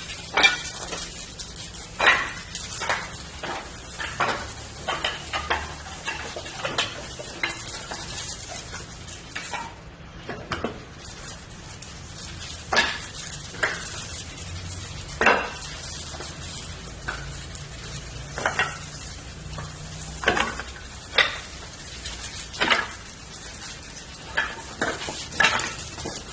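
Burning firewood crackling and popping in sharp, irregular snaps over a steady sizzle.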